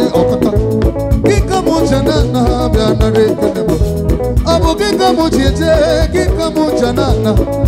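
Live band music: drum kit, bass guitar and electric keyboard playing a steady dance groove.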